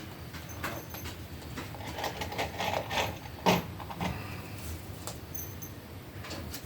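Scattered knocks and clatter, with a busier run of taps and one sharp, loud knock about three and a half seconds in.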